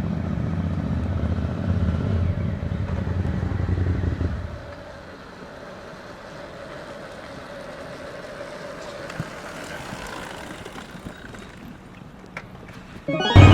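Suzuki SV1000's 90-degree V-twin running through a GPR aftermarket silencer, a deep low pulse for about four and a half seconds before it drops away to a much quieter background. Near the end the engine comes back suddenly and loud, revving up.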